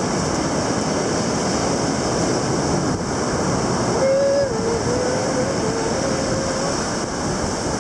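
Steady rushing beach noise of surf and wind on the microphone. About four seconds in, a thin wavering held tone sounds over it for two to three seconds.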